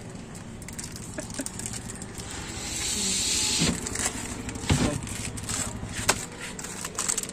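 A passing vehicle's hiss swells and fades about two to three and a half seconds in. After it come a few sharp knocks as the glass sliding lid of a shop chest freezer is slid and handled, over a low steady hum.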